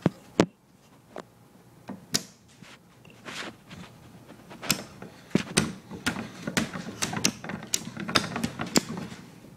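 Homemade wooden rubber-band Gatling gun being hand-cranked, firing rubber bands with a string of sharp snaps and clacks. The shots are sparse at first and come about two a second in the second half.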